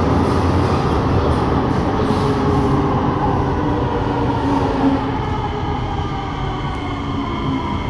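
SMRT C751B metro train heard from inside the carriage as it brakes into the station platform: a steady rumble of wheels and running gear, with a thin electric whine that falls in pitch over the last few seconds as the train slows to a stop.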